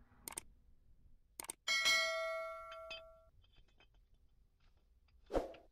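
Two clicks, then a notification-bell chime from a subscribe-button animation that rings and fades over about a second and a half. A short thump near the end.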